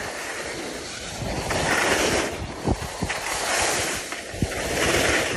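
Skis scraping and hissing over snow at speed, the noise swelling about three times as with each turn, with wind buffeting the microphone. A few short knocks land in the middle.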